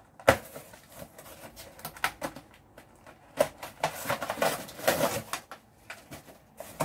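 Packing tape being peeled off a cardboard shipping box and the box flaps pulled open. A sharp crack comes just after the start, then scattered crackles, then a longer stretch of tearing and rustling from about four to five seconds in.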